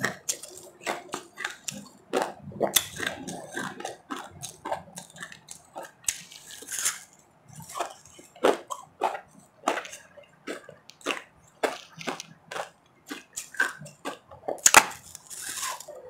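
Close-miked crunching and chewing of refrozen powdery ice: a rapid, irregular run of sharp crunches as the ice is bitten and ground between the teeth, loudest near the end.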